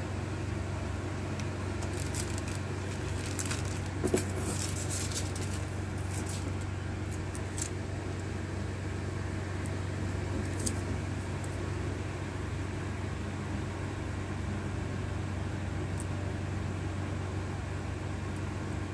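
Steady low electrical hum of running workshop equipment, with scattered light clicks and crackles from small phone parts and plastic film being handled, mostly between about two and eight seconds in.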